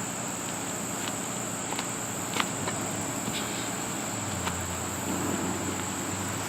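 Steady high-pitched insect chorus, with a few light clicks scattered through it.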